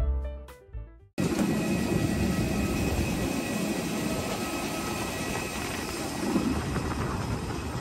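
Piano music cuts off about a second in, replaced abruptly by steady airport-apron noise: the continuous roar of aircraft turbines with a thin high whine over it.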